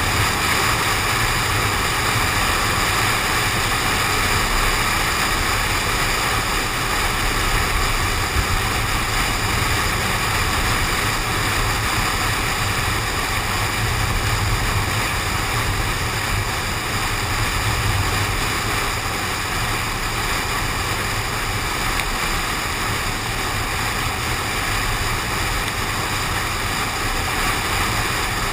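Steady noise of a car driving in the rain, with low road rumble and a constant hiss of tyres, spray and wind, picked up by a camera suction-cupped to the car's window.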